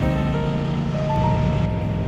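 Background music with held melody notes, laid over the steady running of motorcycle engines and road noise.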